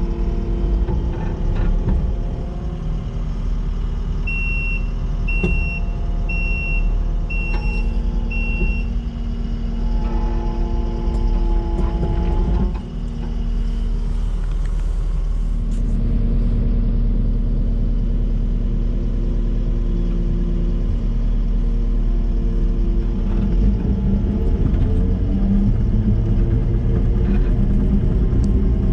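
Kubota SVL97-2 compact track loader's diesel engine running as the machine is operated, its note shifting around the middle. About four seconds in its backup alarm beeps five times, roughly one beep a second.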